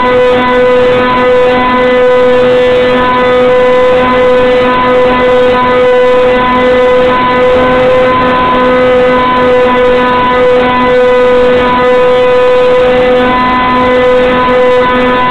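Electric motor and propeller of a Hobbyzone Stratocam RC airplane, heard through its onboard camera: a loud drone at one steady pitch over a constant hiss, with no change in throttle.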